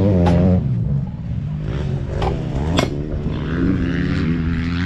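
Yamaha YZ250F single-cylinder four-stroke motocross engine running at low revs, its pitch wavering up and down. A few sharp clicks come about two and three seconds in.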